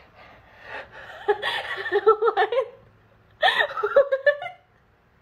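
A person laughing in quick, choppy pulses, then, after a short pause, a brief exclamation of "what what".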